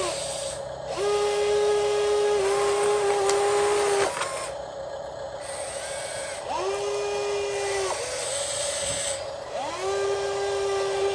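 Small electric motor of a homemade RC excavator model whining in bursts as it works, each burst spinning up quickly to a steady pitch: one from about a second in to about four seconds in, with a small shift in pitch midway, another in the middle, and a third starting near the end.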